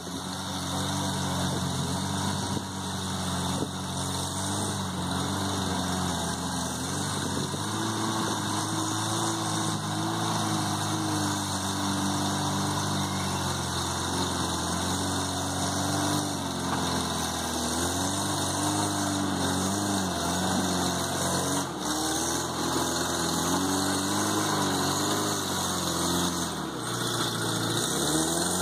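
Suzuki Samurai's engine running at low revs while rock crawling, the revs rising and falling over and over as the throttle is worked over the rocks.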